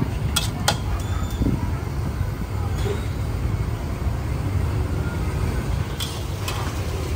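Busy street background: a steady low traffic rumble with a murmur of voices, and a few sharp clinks shortly after the start and again near the end.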